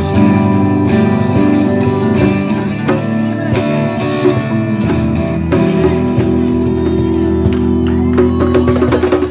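Amateur live band playing: electric and acoustic guitars sounding together through a small amplifier, in sustained chords. Near the end the playing turns into short, rhythmic, choppy strokes.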